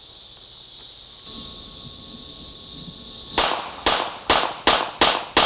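Semi-automatic pistol firing a rapid string of about six shots, evenly spaced a little under half a second apart, starting about three and a half seconds in. Insects chirr steadily underneath.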